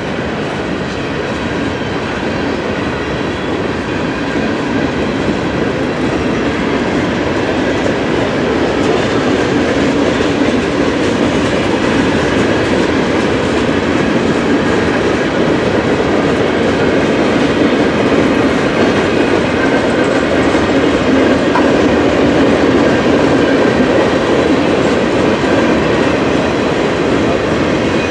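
Norfolk Southern freight train's cars rolling past close by, a steady loud noise of steel wheels on the rails that grows a little louder about a third of the way in.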